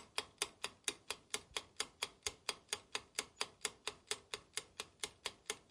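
Ticking clock sound effect: even, dry ticks at about four to five a second, with no room sound behind them.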